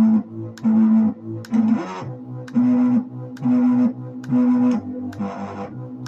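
Music: a low, drone-like note with many overtones repeated in a steady pulse about once a second, with a sharp tick between the notes. The note steps slightly higher about two seconds in.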